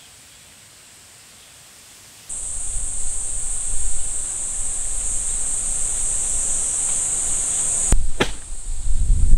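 A steady, high-pitched drone of summer insects starts abruptly about two seconds in, over wind rumbling on the microphone. Two sharp clicks come near the end, and the wind rumble then grows louder.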